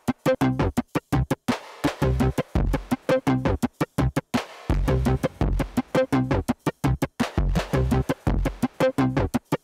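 Electronic music with synthesizer and drum machine, chopped into short stuttering fragments that cut off abruptly again and again, with deep bass notes in places.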